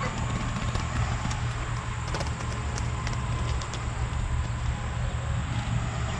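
Steady low rumble of movement and handling noise, with scattered light clicks and rustles.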